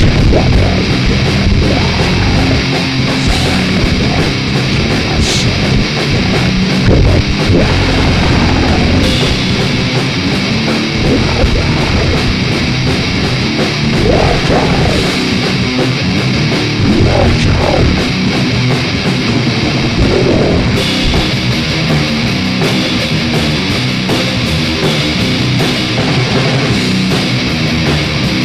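Goregrind song from an old demo cassette: a loud, dense, unbroken wall of heavily distorted guitars and drums.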